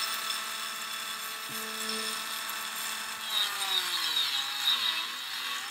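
Dremel rotary tool running with a stainless steel wire brush wheel, scrubbing the steel of a straight razor blade near the tang. From about three seconds in, the whine wavers up and down in pitch as the wheel bears on the blade.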